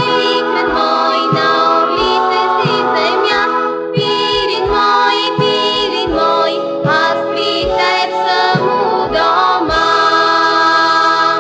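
Closing bars of a song: a girls' vocal group singing in harmony over band accompaniment with a regular bass beat, ending on a long held chord near the end.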